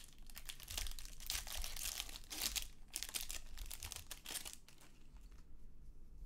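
A foil trading-card pack being torn open and crinkled in the hands: rapid crackling and tearing of the wrapper for about four and a half seconds, then much quieter.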